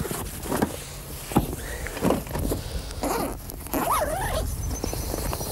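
Padded fishing tackle bags being handled and opened: a few knocks and rustles with several short squeaks that rise and fall in pitch.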